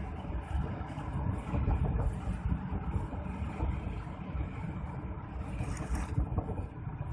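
Wind buffeting a phone microphone, an irregular low rumble, with a brief hiss about six seconds in.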